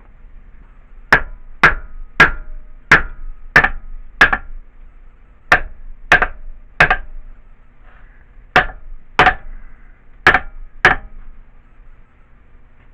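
A hammer striking the metal of an old air compressor, about thirteen sharp blows in short bursts, each with a brief metallic ring. The tapping follows the removal of six bolts and is likely an attempt to loosen a stuck part.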